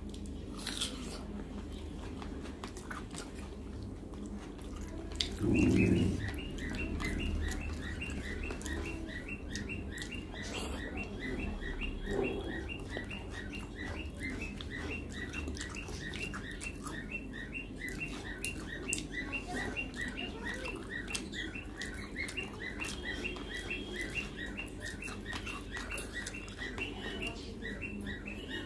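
Eating by hand: fingers working rice and curry on the plate, with chewing and mouth sounds. Behind it a bird chirps in rapidly repeated short notes from about five seconds in. A brief louder low sound comes about six seconds in.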